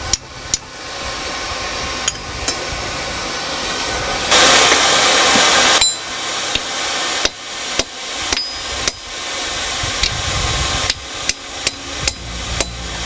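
Hand hammer striking hot steel on an anvil in irregular blows, some with a brief ring, over the steady rush of the forge. About four seconds in, a loud rushing hiss lasts about a second and a half.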